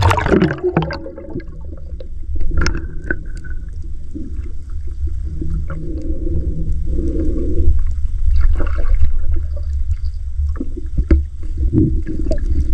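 Shallow seawater splashing and sloshing around someone wading, with scattered knocks and a steady low rumble underneath.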